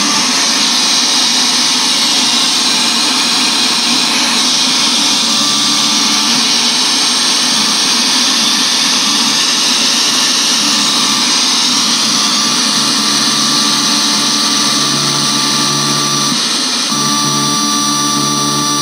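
Loud, steady hiss and buzz from a pair of small speakers driven by a Bluetooth MP3 decoder board and amplifier: the sign of a fault in the power supply. A few steady tones join in near the end.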